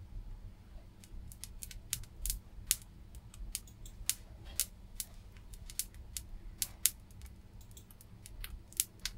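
Irregular sharp clicks and ticks, two or three a second, from desoldering components off a circuit board held over a molten-solder pot with tweezers.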